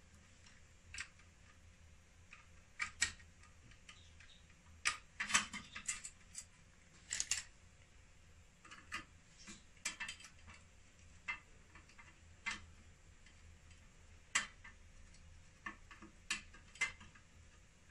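Irregular light clicks and knocks as hands handle the wiring and parts inside an opened power inverter's casing, some coming in quick clusters.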